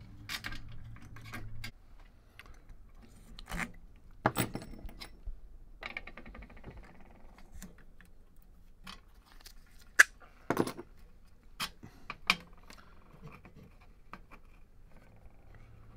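Small metal parts being handled and set down on a wooden workbench: scattered clicks, clinks and light scrapes, the sharpest about ten seconds in, with a brief rattling ring around six seconds in.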